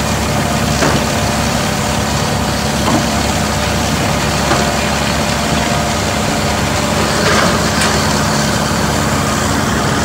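John Deere 350G excavator's diesel engine running steadily, with a few light knocks.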